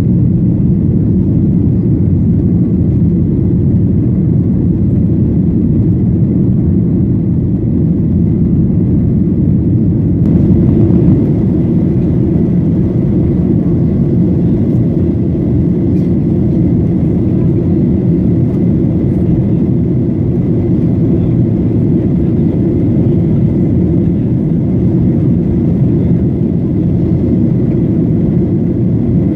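Steady cabin noise inside a Boeing 737-900ER airliner: a constant low rumble of the engines and airflow, with a little more hiss joining about a third of the way in.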